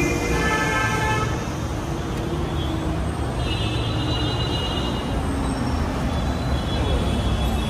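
Busy road traffic rumbling, with vehicle horns honking several times: one at the start, another about three and a half seconds in, and a third near the end.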